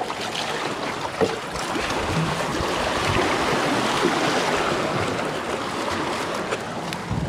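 Sea water splashing and rushing, swelling towards the middle and easing off, with a couple of light knocks.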